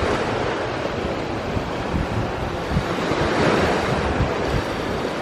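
Sea waves washing in, one swelling up about three and a half seconds in, with wind buffeting the microphone in low thumps.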